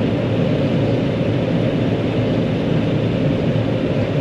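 John Deere 9500 combine running steadily while harvesting corn, heard as a constant low drone from inside the cab.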